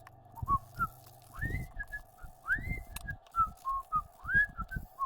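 Whistling: a string of short whistled notes, several sliding upward, over soft irregular low thumps and a faint steady hum.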